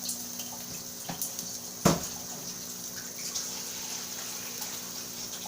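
Rice sizzling in a hot pot as it is sautéed, a steady hiss over a low steady hum, with a few sharp clicks of a ladle on the pot, the loudest about two seconds in.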